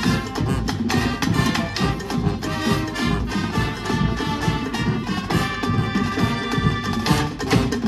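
Marching band playing live: brass (trumpets and sousaphones) carrying the tune over a steady beat of snare and bass drums.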